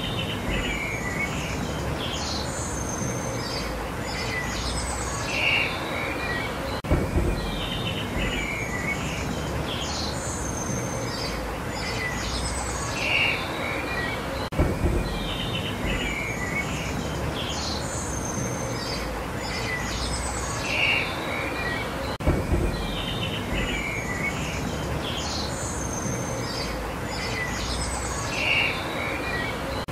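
Small birds chirping over a steady outdoor hiss and low rumble. The same stretch of chirps comes round again about every seven and a half seconds, each time with a soft low thump, as in a looped ambience track.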